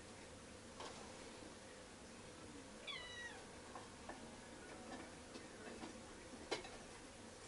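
A cat meows once, briefly and with a falling pitch, about three seconds in. There are faint scattered clicks of small parts being handled, with one sharper click near the end.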